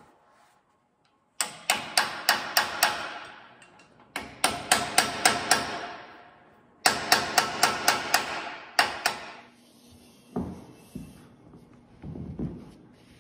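Ball-peen hammer driving a steel punch against a fitting on a steel crane boom: three quick runs of about half a dozen sharp blows each, the steel ringing after every blow, then a couple more strikes. Near the end come a few duller knocks.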